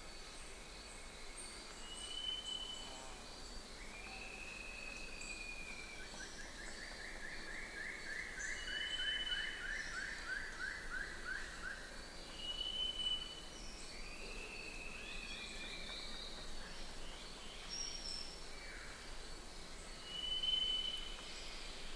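Birds singing over a steady background hiss: short high whistles recur every few seconds, and a long trill of quick repeated notes runs from about six to twelve seconds in.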